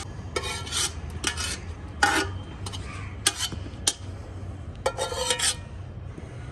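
Short scraping and rubbing sounds, about half a dozen at uneven intervals, as boiled potato slices are pulled apart and spread out one by one by hand.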